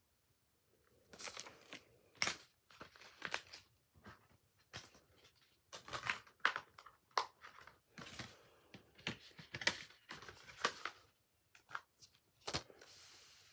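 Paper pamphlet and plastic Blu-ray case being handled: a run of irregular rustles and crinkles with a few sharp clicks.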